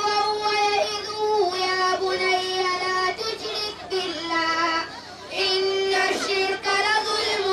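A boy's voice chanting in long held notes that step up and down in pitch, amplified through a handheld microphone, with a short break about five seconds in.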